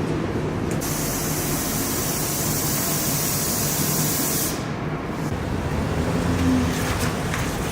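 Compressed air hissing from an air tool, starting just under a second in and cutting off after about four seconds, over a steady low rumble of shop machinery.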